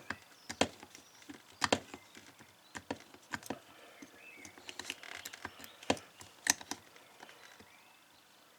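Master Lock combination lock being worked with a pick: a dozen or so irregular sharp clicks and taps as the lock and tool are handled, the loudest a little under two seconds in and again after about six and a half seconds.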